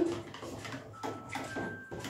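Metal spoon stirring soapy water in a plastic measuring jug, tapping and scraping against the jug's sides in a run of quick, irregular clicks.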